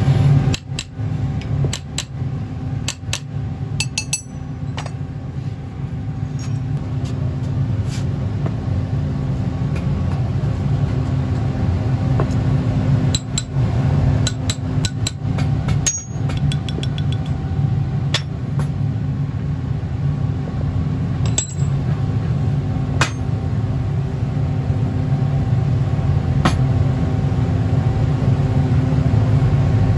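Sharp metallic taps and clinks of a small metal tool and metal casting-flask parts being knocked and set against each other, bunched in the first few seconds and again about halfway through, some ringing briefly. Under them a steady low machine hum runs throughout.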